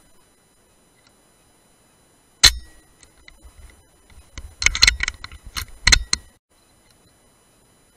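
A single sharp shot from a Brocock Sniper HR .177 PCP air rifle about two and a half seconds in, with a brief ringing after it. From about four to six seconds comes a quick cluster of metallic clicks and rattles of the rifle's action being worked for the next shot.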